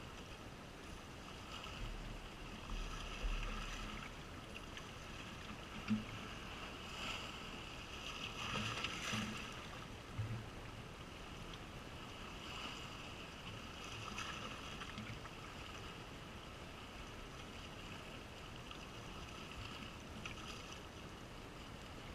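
Calm sea water washing and lapping at the shore, faint and steady, with a single sharp knock about six seconds in.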